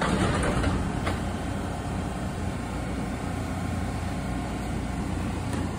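MBTA Red Line subway train standing at the platform with its doors shut, giving a steady low rumble. A short burst of hiss opens the sound, and a sharp clunk comes about a second in.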